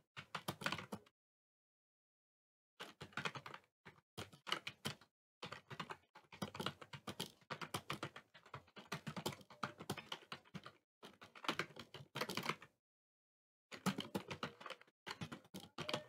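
Fast touch-typing on a computer keyboard at about 60 words a minute: a rapid, uneven run of key clicks that pauses for about two seconds near the start and briefly again about 13 seconds in.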